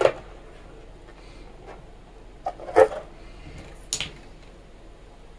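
A latex modelling balloon being handled and twisted: a few brief rubbing squeaks and a sharp click between about two and a half and four seconds in, otherwise quiet.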